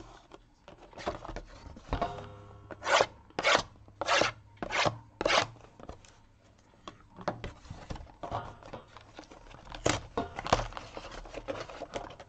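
A sealed box of Sterling baseball cards being opened by hand, its wrapper and cardboard handled and torn. There is a run of five short, loud strokes about two a second, then quieter scattered rustling.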